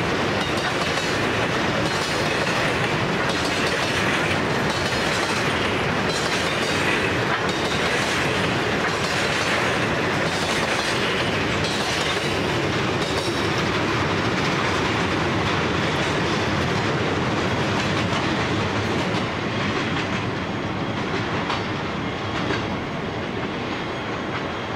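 A long rake of grain hopper wagons rolling past at speed, with the steel wheels clicking over the rail joints. The sound eases a little in the last few seconds.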